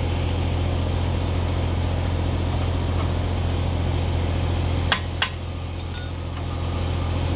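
An engine running steadily at idle with a low hum, and three sharp metal clinks about five and six seconds in as hub parts are handled.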